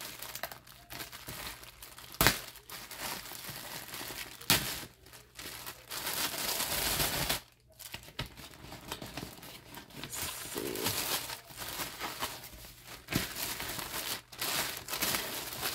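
Clear plastic wrapping crinkling and rustling as it is pulled off a packaged handbag by hand, with a few sharper snaps along the way.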